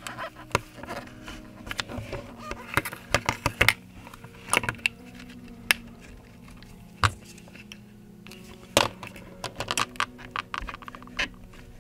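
Sharp little clicks and light scrapes of a thin opening pick being drawn around an iPhone 13 Pro Max between the display glass and the frame, cutting through the adhesive that holds the display, with taps from handling the phone. The clicks come irregularly, some in quick runs.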